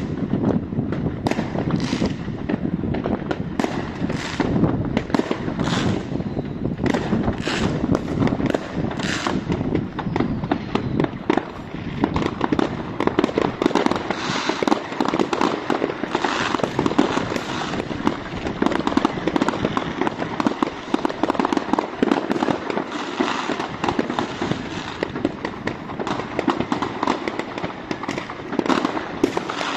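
Many fireworks rockets and firecrackers going off at once: sharp separate bangs over the first ten seconds, then a dense, unbroken crackle of bangs.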